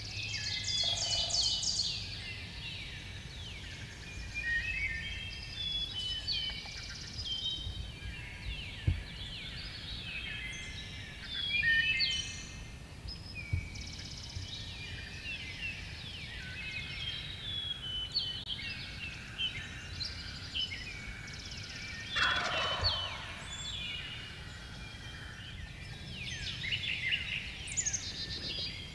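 Wild turkey gobbler gobbling, about a second in and again around 22 seconds, over a steady chorus of songbirds chirping.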